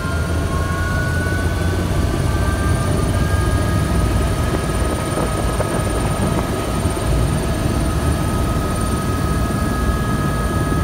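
Eurocopter EC130 helicopter running, heard from inside the cabin. A heavy steady drone from the rotor and engine sits under a high whine, which rises slightly in pitch over the first few seconds and then holds steady.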